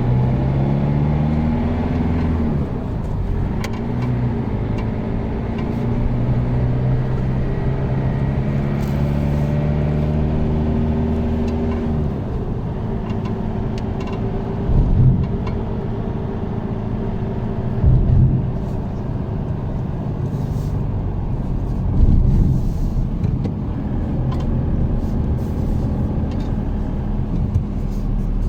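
Car engine running as the vehicle is driven, its pitch rising and falling with speeding up and gear changes, then holding steady. A few short thumps come through about halfway and again later.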